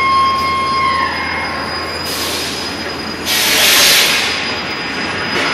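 A high steady mechanical whine with overtones slides down in pitch and dies away about a second in. It is followed by two bursts of hissing noise, a short one about two seconds in and a louder one between three and four seconds.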